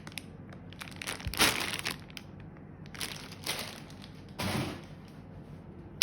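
Packaging being handled during an unboxing, crinkling and rustling in a few irregular bursts, the loudest about a second and a half in.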